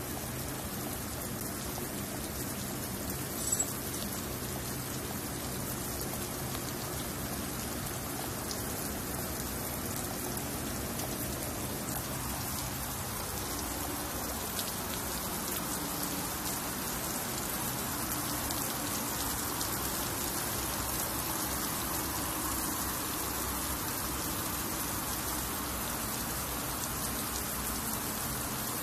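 Water spray falling like heavy rain onto an LED display cabinet and the wet concrete around it in a waterproof test: a steady, even hiss of splashing water. There is one brief sharp click about three and a half seconds in.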